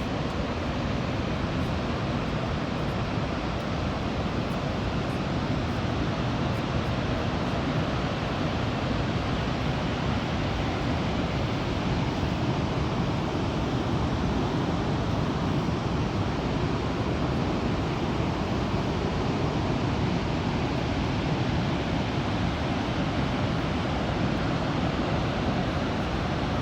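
Steady rumbling roar of Niagara Falls, a large waterfall's water thundering down, with no change in level throughout.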